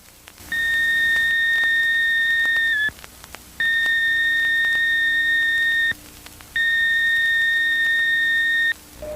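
Electronic alert tone in a mock Emergency Alert System broadcast: three long, steady, high-pitched beeps of about two seconds each, separated by short gaps. The first beep dips slightly in pitch just before it cuts off.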